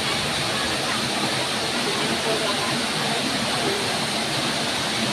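Waterfall water falling and splashing in a steady, even rush.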